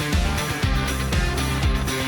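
Background music: an upbeat pop-rock backing track with guitar and a steady bass beat.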